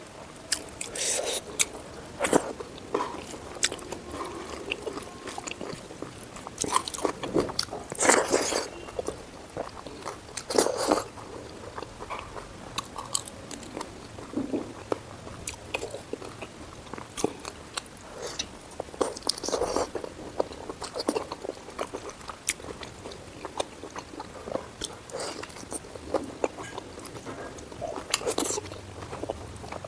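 Close-miked eating of pork curry and pork fry: irregular biting, crunching and wet chewing, with sharp clicks between bites and the loudest bites about 8 and 11 seconds in.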